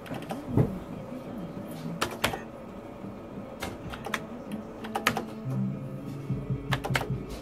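Start button on a video slot machine being pressed again and again, giving sharp clicks about every second, several in quick pairs. Under them run the machine's steady electronic jingle tones.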